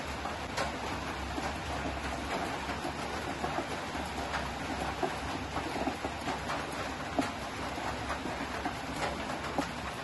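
Wooden spatula scraping and knocking on a metal tube pan as hot caramel is spread around it, over a steady hiss, with many small clicks throughout.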